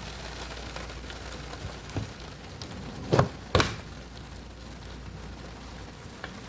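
Steady rain falling outside, a soft even hiss, broken about three seconds in by two loud sharp knocks close together.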